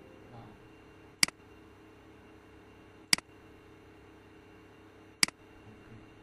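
Three single computer-mouse clicks, about two seconds apart, over faint room hiss.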